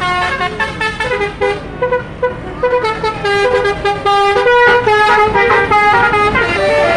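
Loud 'telolet' multi-tone musical horn of an Indonesian tour bus playing a quick melody of short, stepping notes, several notes a second.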